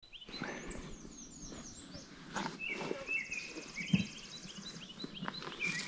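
Several songbirds singing together in a spring woodland chorus: many short whistled notes that slide up and down, and a fast buzzy trill that runs for about a second and a half in the middle. A few soft low thumps come through under the song, the loudest about four seconds in.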